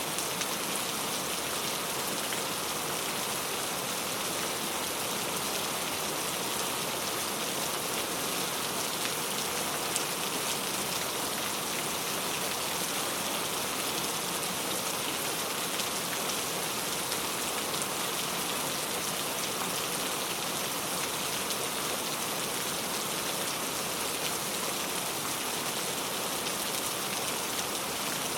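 Steady rain falling, an even hiss of many small drops without thunder.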